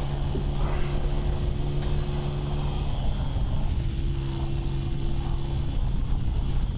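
Motorcycle engine running at a steady cruise with a constant drone, under heavy wind rush on the bike-mounted microphone.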